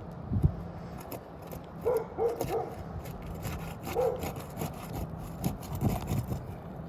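A roofing snake scraping and rubbing as it is worked under asphalt shingles, with irregular clicks. Its edge is tearing the corner of a shingle. A dog whines briefly twice, about two and four seconds in.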